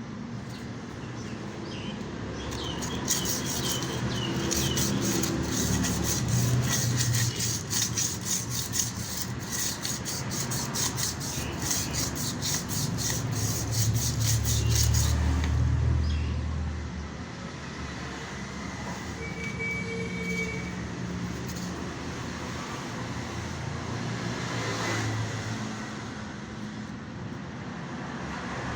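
Rhythmic rubbing or scraping strokes of hand sanding or filing, about three a second, lasting some twelve seconds and then stopping, over a low rumble.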